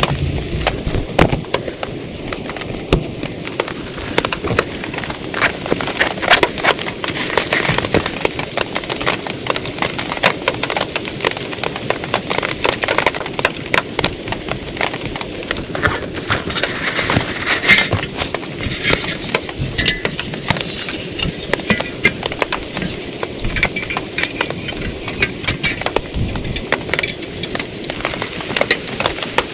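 Heavy rain falling on a tent: a dense, irregular patter of drop impacts, with scattered louder single hits.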